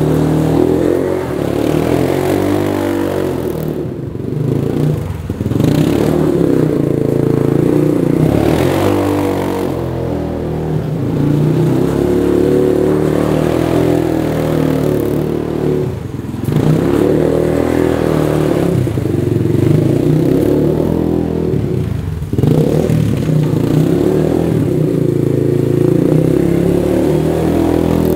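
Suzuki LT-Z250 quad's single-cylinder engine revving up and easing off again and again as it is drifted on snow, with short dips in throttle every few seconds.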